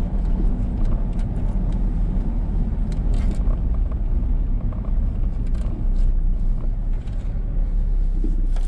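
A car driving along a paved road, heard from inside the cabin: a steady low rumble of engine and tyres, with a few light clicks.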